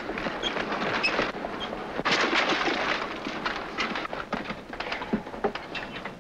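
Horse-drawn carriage on a dirt road: hooves clopping and the wheels crunching and rattling over the ground, loudest about two seconds in.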